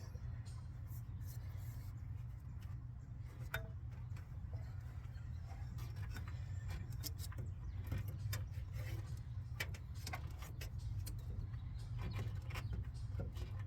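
Scattered small clicks, taps and light metallic rattles of hand work on radiator hoses and parts, over a steady low hum.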